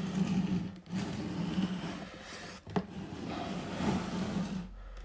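Handling noise from sneakers and their box being moved about, with rustling and one sharp knock about two and a half seconds in.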